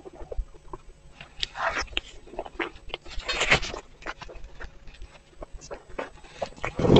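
Close-miked chewing of a soft, saucy pastry filled with meat floss: irregular wet mouth clicks and smacks, with a few louder moments, the loudest near the end.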